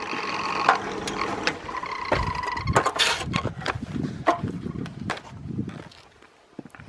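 A small electric motor whines steadily and stops about two and a half seconds in. It is followed by a run of knocks and clatters as hard parts and tools are handled, fading out near the end.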